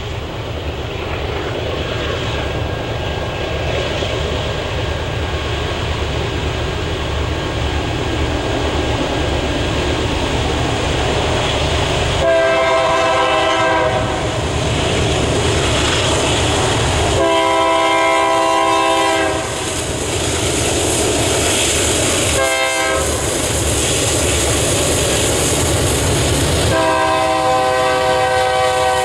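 Approaching BNSF freight train led by two GE C44-9W (Dash 9) diesel locomotives: a steady engine rumble that grows louder, and the locomotive horn sounding long, long, short, long, the grade-crossing signal. The horn starts about twelve seconds in, and its last long blast is still sounding at the end.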